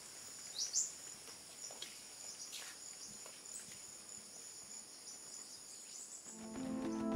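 Steady high-pitched drone of insects, with a short rising chirp about a second in and a few faint clicks. Music fades in near the end.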